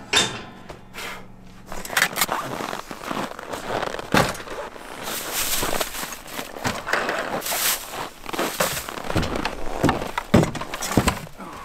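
Boots crunching in snow and ice-fishing gear knocking around as an ice auger and a bucket of tip-ups are handled in a cargo sled, with a rush of wind through the middle.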